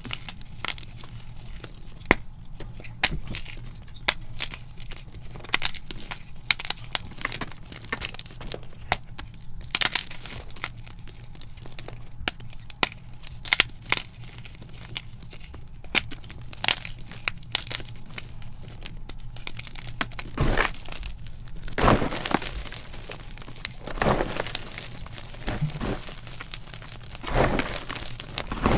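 Blocks of magnesium carbonate gym chalk snapped and crushed by hand, close up: many quick, crisp cracks and crumbling crunches. From about twenty seconds in come slower, fuller crunches as handfuls of crumbled chalk are squeezed.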